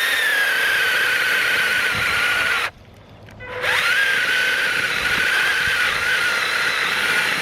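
Worx 20-volt cordless mini chainsaw cutting through a small tree trunk: the electric motor winds up to a steady high whine, stops for about a second, then winds up again and runs steady.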